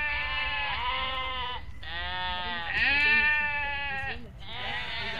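Long bleating calls in quick succession, each held for a second or two with a slight bend in pitch and only brief gaps between them.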